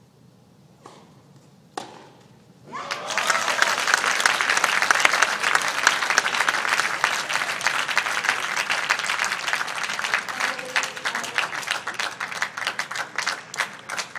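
Two sharp knocks from the tennis ball in play. About three seconds in, an indoor crowd breaks into loud applause that keeps going and thins near the end: the crowd greeting the championship-winning point.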